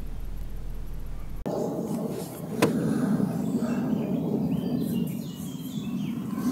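A steady low hum that cuts off suddenly about a second and a half in, giving way to outdoor background noise: a low rumble, one sharp click and a few faint bird chirps.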